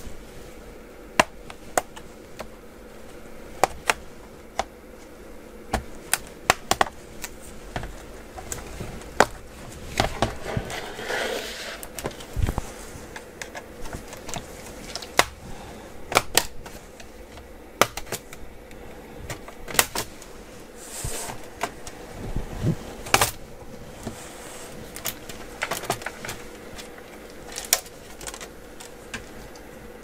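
Bottom cover of a Dell Latitude 5520 laptop being pried off with a pry tool: irregular sharp clicks and snaps as its clips release one by one, with a brief scrape, over a faint steady hum.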